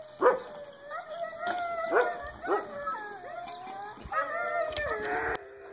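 Huskies howling together, with sharp yips and barks cutting in over the wavering howls. It breaks off suddenly near the end.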